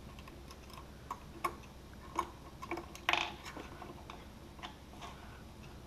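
Small irregular clicks and taps of hands fitting a part into a cramped plywood dash panel among loose wires, with one louder short scrape about three seconds in, over a steady low hum.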